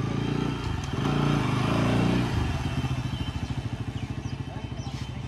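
Motorcycle engine running as the bike rides by on a dirt road. It is loudest from about one to two seconds in as it passes closest, then eases off.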